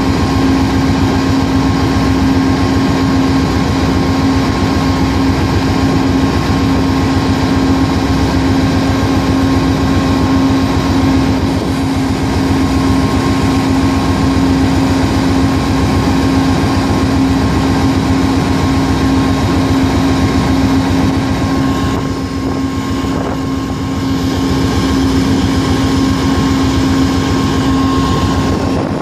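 Amtrak GE P42DC Genesis diesel locomotive running steadily while stopped: a loud, even engine drone with a held, constant hum and a thinner high tone over it.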